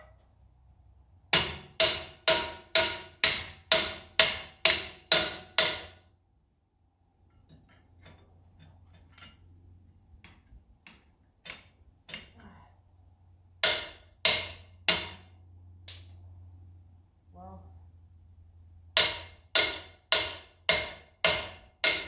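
Hammer blows ringing on a long steel bar held against a tractor engine: a run of about nine sharp metal strikes at two a second, four slower blows with light taps in the middle, then seven quick strikes near the end.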